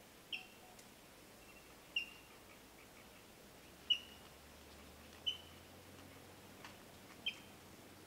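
Yellow-billed kingfisher calling: five short, sharp, high notes spaced about one and a half to two seconds apart, over a faint steady hiss.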